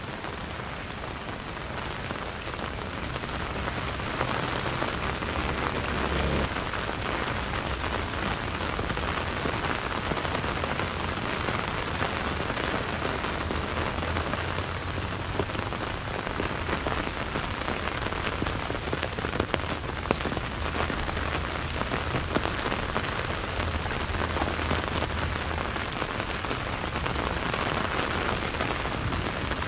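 Steady rain falling, with many sharp drop hits and a low rumble underneath, growing a little louder over the first few seconds.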